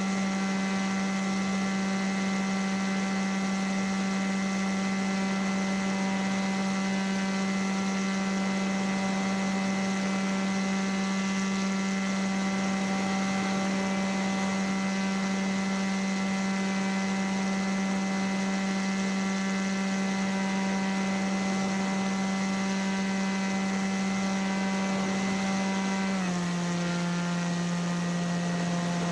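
Paramotor's motor and propeller running at steady revs with an even, unwavering drone. About 26 seconds in, the revs drop in a quick step and the pitch falls.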